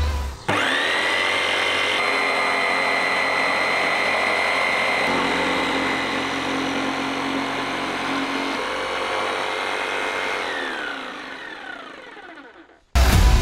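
A small electric motor spins up with a rising whine, runs at a steady pitch for about ten seconds, then winds down and stops.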